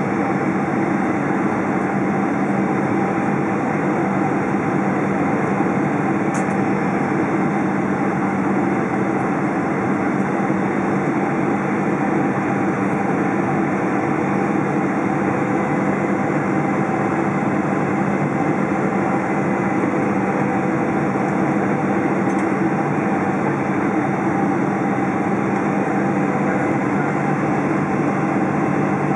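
Cabin noise of a Boeing 777-200 on approach, heard beside the wing: a steady rush of airflow with the hum of the GE90 turbofans and a few low steady tones.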